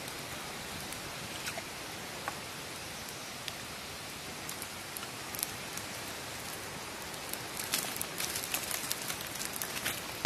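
Cow ribs grilling over an open wood fire: a steady sizzling hiss with scattered sharp crackles that come thicker near the end.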